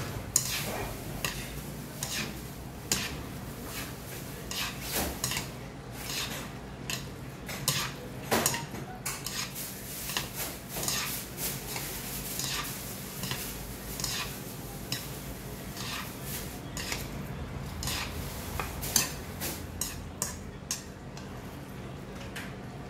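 Metal chopsticks clinking and scraping against a ceramic bowl as jajangmyeon noodles are stirred and mixed into their black bean sauce, with irregular clicks throughout.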